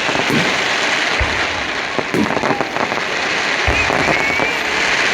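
Fireworks display: a dense, continuous crackling from crackle-effect fireworks, with two deep booms from shells bursting, one about a second in and one near four seconds.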